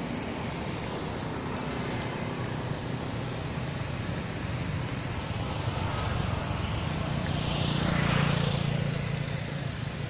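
Steady outdoor hiss with a low engine hum that swells about seven seconds in and eases near the end.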